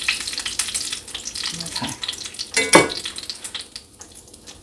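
Cornmeal-coated catfish frying in oil in a skillet, a crackling sizzle that thins out toward the end. A sharp knock comes about two-thirds of the way through.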